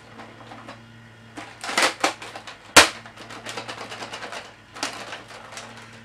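Nerf Modulus Recon MK II spring blaster with a 30-dart drum being handled and test-fired: a cluster of plastic clacks about two seconds in as it is primed, then one sharp snap of the shot just before three seconds. After the shot come rapid light plastic clicks and rattles, over a faint steady hum.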